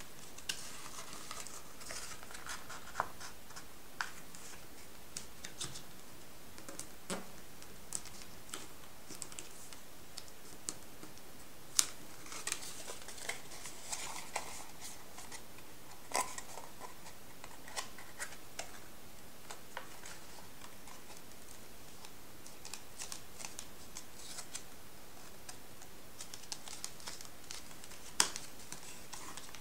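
Paper being folded and creased by hand: intermittent rustling and crinkling of metallised and drawing-block paper, with scattered short ticks as folds are pressed flat, the sharpest about twelve seconds in and again near the end.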